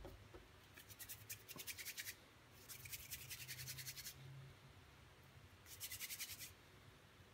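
Quiet scratching and rubbing of modelling dough being worked with small plastic tools, in three short bouts of rapid scraping.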